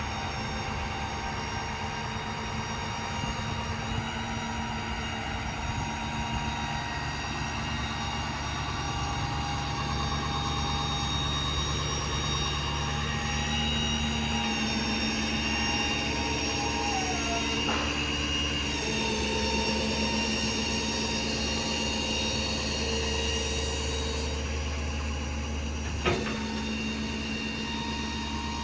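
Hydraulic service-truck crane (HC5 Autocrane) being operated, run by the truck's diesel engine through the PTO: a steady engine and hydraulic pump hum with whining tones that shift in pitch several times as crane functions are engaged. A sharp click comes near the end.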